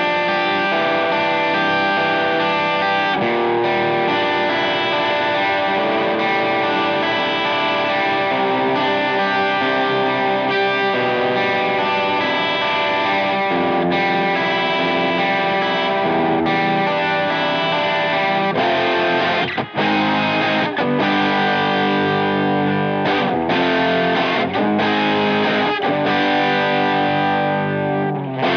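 Overdriven electric guitar, an Edwards Les Paul-style guitar through a Victory V40 valve amp, playing a rock riff. Ringing held chords for most of it, turning choppier with short stops after about eighteen seconds.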